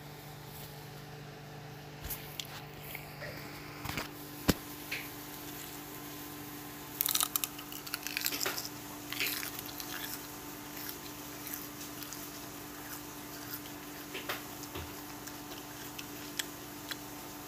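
Crisp lettuce being bitten and chewed right at the microphone: scattered sharp crunches, then a dense stretch of crunching about seven seconds in that lasts around three seconds, over a faint steady hum.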